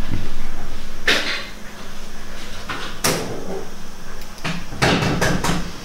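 A few sharp knocks and clatters: one about a second in, another about three seconds in, and a quick run of them near the end.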